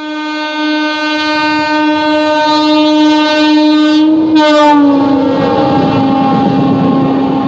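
Indian Railways electric locomotive passing at speed with its horn blaring. A long blast starts suddenly and breaks briefly about four seconds in, then continues. The pitch drops a little as the locomotive goes by, while the rushing clatter of the coaches swells underneath.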